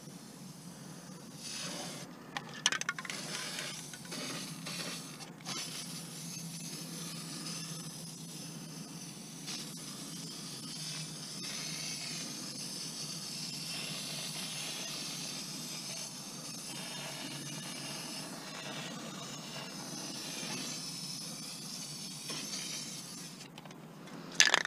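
Aerosol spray paint can hissing in long bursts with brief breaks, after a few sharp clicks about two seconds in.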